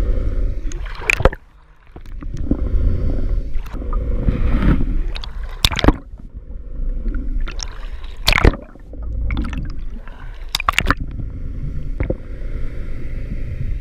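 Muffled water noise as heard through an underwater camera: a low steady rumble with gurgling, broken by a few sharp knocks or splashes, one of them doubled near the end.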